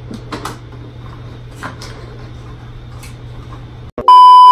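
A few light clicks over faint room hum, then about four seconds in, a loud, steady test-tone beep of the kind played over TV colour bars starts abruptly.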